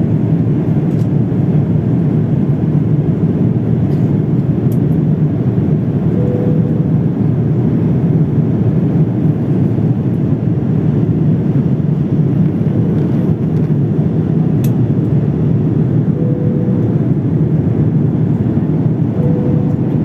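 Steady low drone of engine and airflow noise inside an airliner's cabin in flight.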